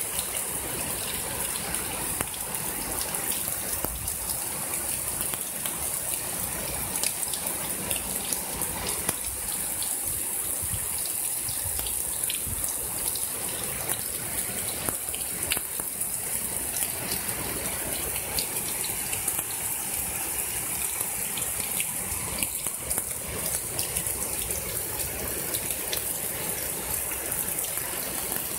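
Heavy rain pouring down steadily in a storm, with scattered sharp ticks.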